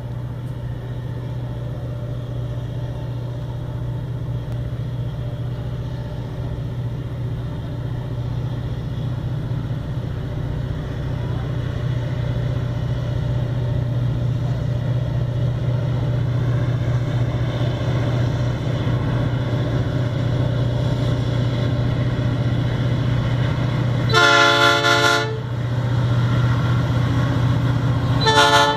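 Three BB40 diesel-electric locomotives in multiple, engines working hard under acceleration, a steady low drone growing louder as the train approaches. About four seconds before the end the chime horn sounds a blast of over a second, then a short toot right at the end.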